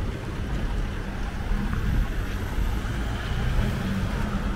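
Street traffic: a steady low rumble of vehicle engines and tyres passing on the road.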